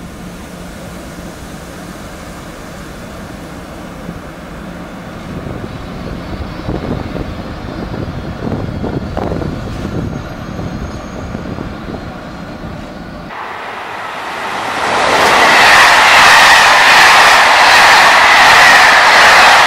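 SNCF BB 26000 electric locomotive hauling a freight train past a platform: a steady hum that swells into a rolling rumble. After an abrupt cut about 13 seconds in, a much louder rushing noise with a steady high tone rises and holds: a train passing close.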